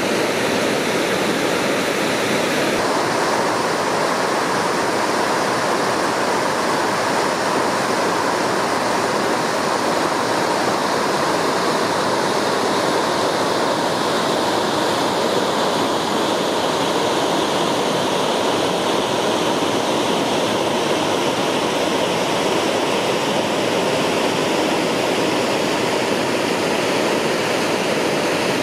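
Waterfall and rapids on a rocky canyon creek: a loud, steady rush of falling and churning water, its tone shifting slightly about three seconds in.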